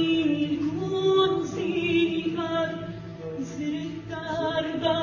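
A woman singing solo with a choir and orchestra, holding long notes that waver in pitch over a steady low drone from the ensemble.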